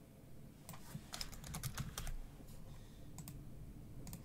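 Typing on a computer keyboard: a quick run of keystrokes between about one and two seconds in, then a few single clicks.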